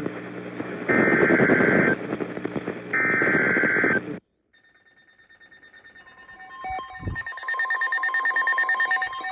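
Emergency Alert System SAME header: two of the three one-second digital data bursts, harsh modem-like screeches about a second apart. After a brief silence, electronic tones fade in and build to a rapid pulsing.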